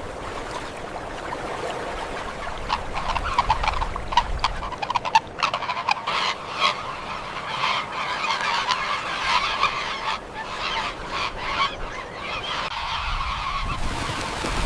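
A flock of birds calling, with many short calls overlapping continuously.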